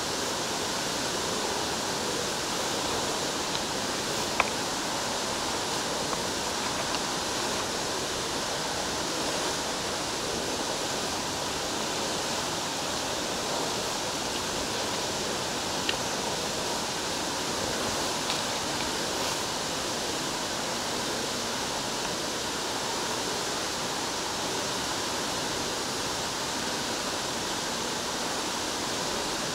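Steady, even rush of Fell Beck's waterfall falling down the main shaft of Gaping Gill into the cave's main chamber.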